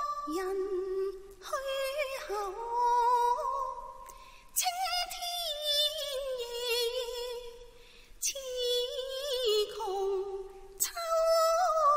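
Cantonese opera singing: a high voice draws out long, wavering sung notes in about five phrases with short breaks between them, each phrase gliding up and down in pitch.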